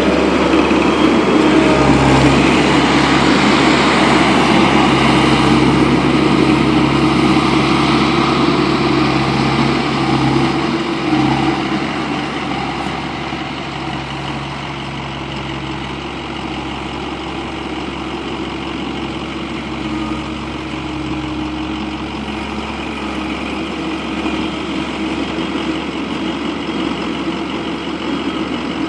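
Skid steer engine running steadily, louder for about the first eleven seconds, then settling to a lower, even level.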